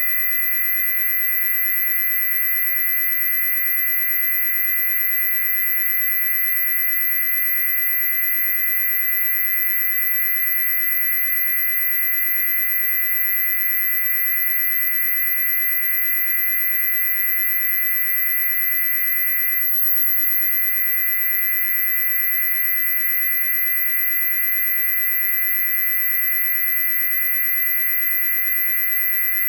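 A loud, steady, high-pitched electronic tone, several pure pitches sounding together without change, the highest of them piercing.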